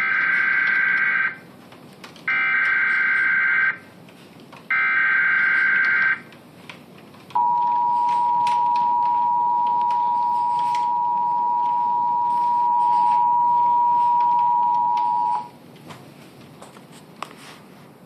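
Emergency Alert System tones through a TV speaker. First come three loud buzzing SAME header data bursts, each about a second and a half long and about a second apart. Then the steady two-tone attention signal sounds for about eight seconds and cuts off abruptly, signalling that the spoken warning message follows.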